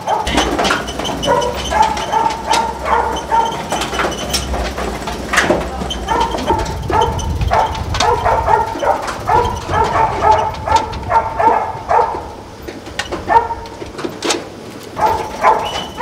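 Animals calling over and over, with metal clanks from a sheep-handling machine. A steady low machine rumble runs under them and stops about a second before the end.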